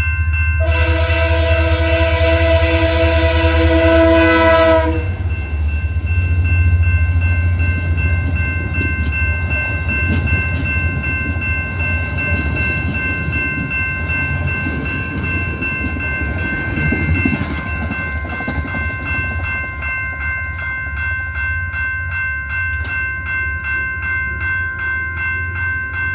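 Train horn sounding one long blast for about four seconds near the start, then the train rumbling past over the crossing while the level-crossing bells keep ringing in a steady rhythm.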